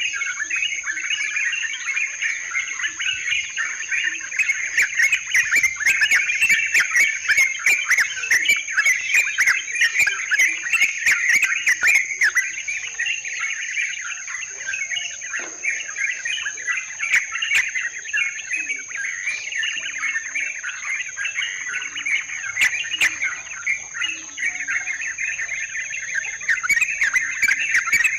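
Yellow-vented bulbuls (trucukan) chattering in a dense, continuous chorus of bubbling calls, over a steady high-pitched insect drone, with scattered sharp clicks.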